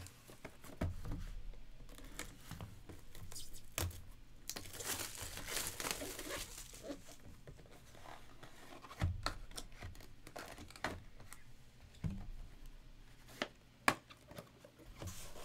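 Plastic shrink wrap tearing and crinkling as sealed trading-card hobby boxes are unwrapped, loudest in the middle. Cardboard boxes are slid and set down with scattered light knocks.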